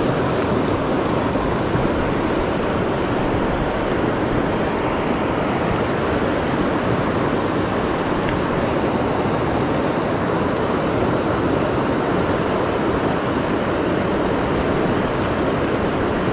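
Fast mountain river rushing through rapids over rocks: a steady, loud wash of turbulent whitewater.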